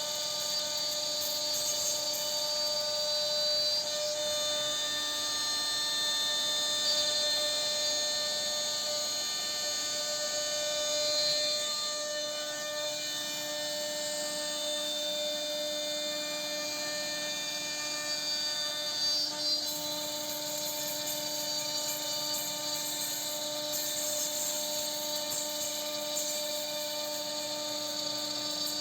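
Steady whine of a CNC router's spindle cutting into wood, with a few brief swells in loudness as the cutter works.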